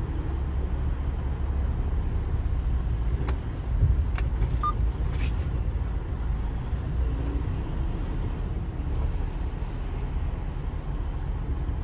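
Freightliner semi-truck's diesel engine running at low speed, heard from inside the cab as a steady low rumble, with a few light clicks and rattles about three to five seconds in.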